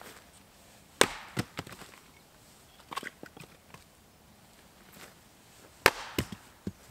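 Axe splitting firewood on a log chopping block: two sharp chops about five seconds apart, each followed by a short clatter of split pieces falling, with lighter wooden knocks in between as the next piece is set up.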